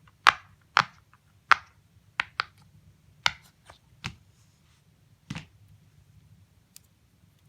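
Silicone pop-it fidget toy having its bubbles pressed one at a time, giving sharp single pops about every half second at first. The pops spread out and stop about two-thirds of the way through.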